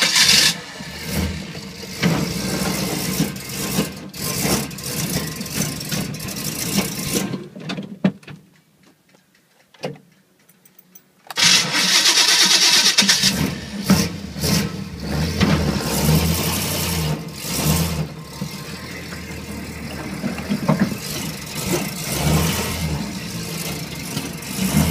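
1986 Chevy K5 Blazer's 350 small-block V8 with headers and Flowmaster exhaust, cold and running rough on bad ethanol gas through a plugged-up Quadrajet carburetor. It dies about seven seconds in, goes quiet for about three seconds, then fires again and keeps running unevenly.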